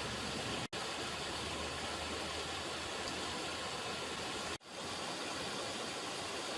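River water running in a steady rush. The sound drops out for a split second twice, about a second in and again about four and a half seconds in.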